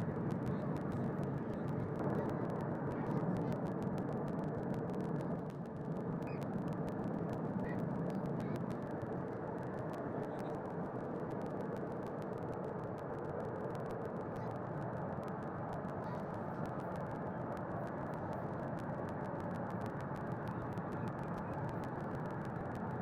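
PA loudspeakers playing a steady rushing test noise, with almost nothing above about 2 kHz; it gets a little quieter about five seconds in.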